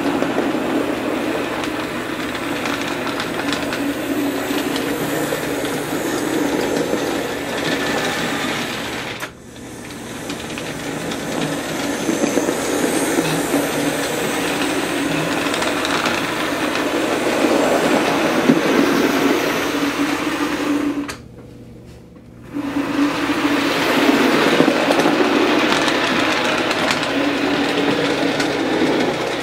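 OO gauge model trains running along the track: a steady whirring electric motor with wheel clatter on the rails. It drops out briefly twice, at about nine seconds and again for about a second a little past twenty seconds.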